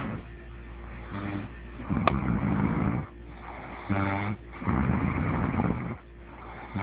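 A person snoring heavily in a slow rhythm, about two full breaths: each one a short low rattling snore followed by a longer breathy rush of air, coming round about every three seconds.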